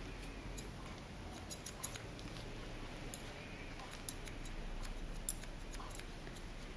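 Barber's scissors snipping short hair around the ear: a run of small, irregularly spaced cutting clicks.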